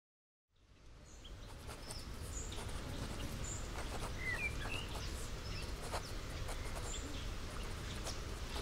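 Outdoor ambience fading in after a brief silence: scattered short bird chirps and calls over a steady low rumble.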